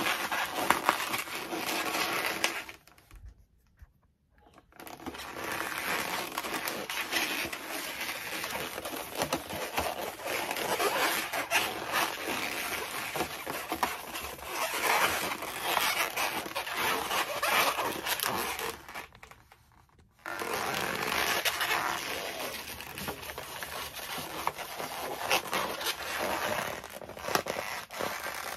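Inflated latex modelling balloons rubbing, squeaking and creaking against hands as a chain of balloon bubbles is stretched and twisted, with two brief lulls, about three seconds in and again around nineteen seconds.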